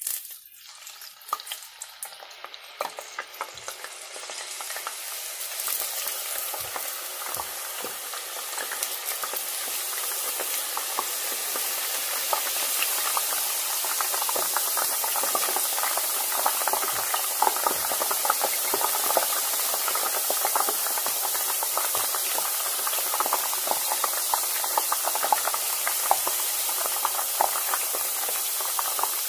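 Thin potato slices deep-frying in hot oil in a pot: a crackling sizzle that starts suddenly and grows louder over the first ten seconds or so as more slices go in, then holds steady.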